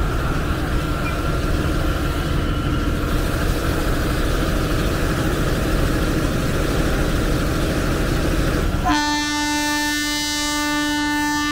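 Diesel train's air horn sounding one long, steady blast that starts about nine seconds in, over a steady low rumble and outdoor noise at the station.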